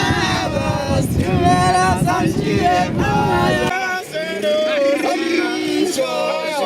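A song with singing voices over a dense low accompaniment; the low part cuts out suddenly a little under four seconds in, leaving the voices.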